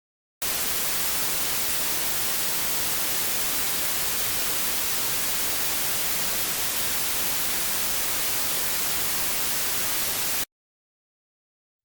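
White noise: a steady, even hiss that switches on abruptly and cuts off suddenly about ten seconds in.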